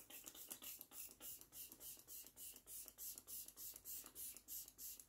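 Benefit makeup setting spray being pumped from its atomizer: a rapid, even series of faint hissing puffs of fine mist, about four to five a second.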